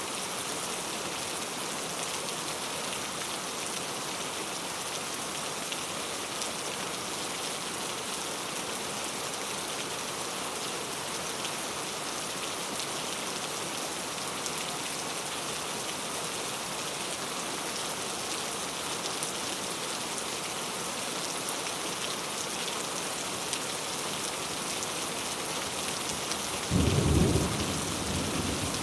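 Steady heavy rain falling, with a sudden crack of thunder near the end that rumbles briefly and fades.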